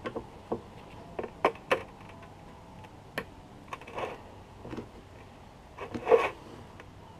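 Irregular metal clicks and taps of a screwdriver working at the butterfly screws inside an aluminium Subaru TGV housing, with a louder clatter near the end.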